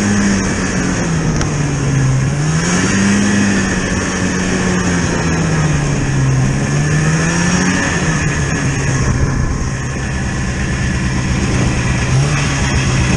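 Vehicle engine running under way, its pitch rising and falling a few times, then holding steady for the last few seconds.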